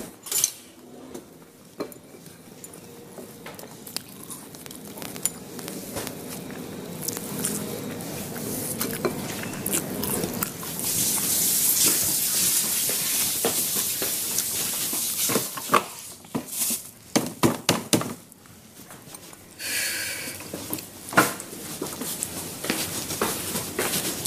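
Clinks and knocks of kitchen utensils and dishes being handled, with a steady hiss lasting a few seconds near the middle and a quick run of knocks soon after.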